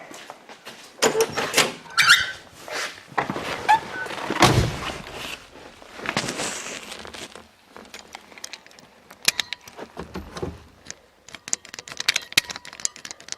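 Irregular clunks and clicks of hands working at a car, with a heavier thud about four and a half seconds in and a brief squeak near two seconds. There is no cranking: the freshly swapped-in battery is too dead to turn the starter.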